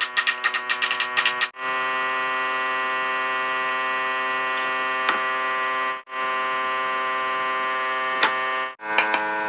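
Rapid hammer blows on a wooden beam for about the first second and a half, over background music. After that the music holds a steady chord, breaking off briefly twice.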